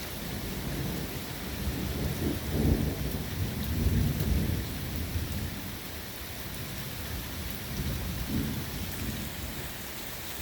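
Heavy rain falling steadily, with low rumbles of thunder swelling up about two seconds in, loudest around four seconds, and again briefly near the end.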